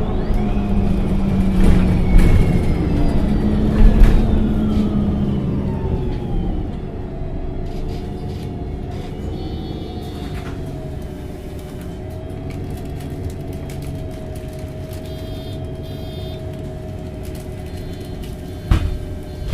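MAN NG273T4 articulated LPG bus running: a whine that falls in pitch as the bus slows over the first six seconds or so. It then settles into quieter, steady running with a held tone, and a single thump comes near the end.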